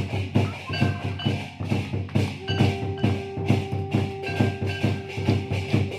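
Hindu devotional aarti music: a quick, steady percussion beat under held melodic tones, with a new long note coming in a little over two seconds in.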